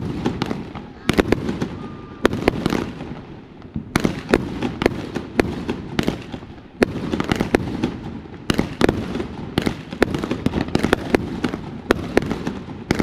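Fireworks going off: a rapid, irregular run of sharp bangs and crackles over a continuous low rumble, with a couple of short lulls.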